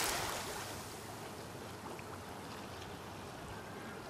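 Pool water sloshing and settling just after a person's jump in, fading within about a second to a low, steady outdoor hiss.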